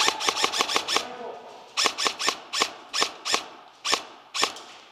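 Airsoft electric rifle (AEG) firing: a quick burst of about seven shots in the first second, then a string of single shots, roughly three a second.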